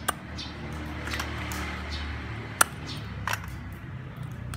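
Cleaver chopping raw sea crab on a wooden chopping board: a few sharp knocks, the loudest about two and a half seconds in, over a steady low hum.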